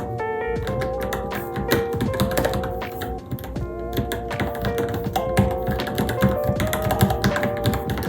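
Fast, irregular typing on a Varmilo Minilo mechanical keyboard, a dense run of key clicks, over background music with a wavering melody.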